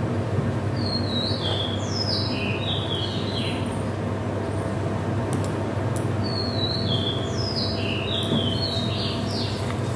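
A songbird singing two phrases of quick, high whistled notes, each about three seconds long and a few seconds apart, over a steady low hum.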